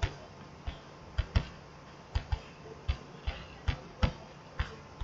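Computer mouse clicking about a dozen times at an irregular pace, often in quick pairs of press and release, as a chart is dragged and panned on screen.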